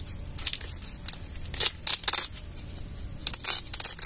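Sweet corn leaves and husk rustling and scraping in a string of short bursts as hands grip and work at a baby corn ear on the stalk.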